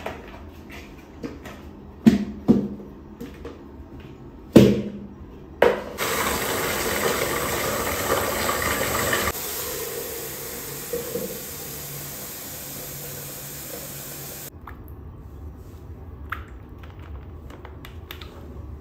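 A few sharp plastic knocks as a collapsible silicone bucket is handled and popped open, then a sink tap running hard into the bucket for about eight seconds. The flow gets quieter partway through and is shut off suddenly, followed by a few small clicks and splashes.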